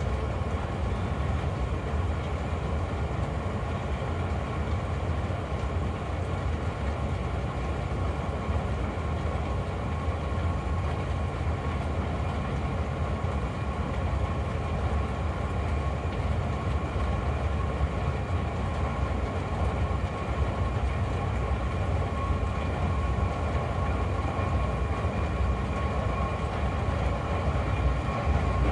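Long escalator running: a steady low rumble of the moving steps and drive with a thin steady whine on top.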